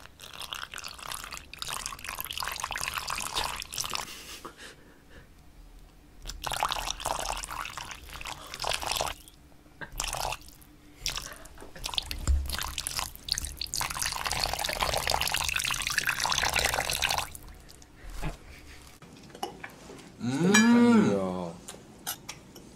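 Liquid dripping and being poured into a metal bowl close to an ASMR microphone, in several stretches of wet splashing. Near the end a loud, drawn-out voice slides up and then down in pitch.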